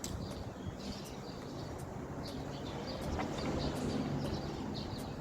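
Small birds chirping on and off over steady outdoor background noise with a faint low hum.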